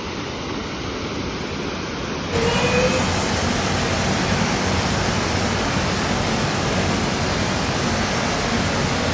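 Waterfall: a steady rush of falling water, stepping up in loudness about two seconds in.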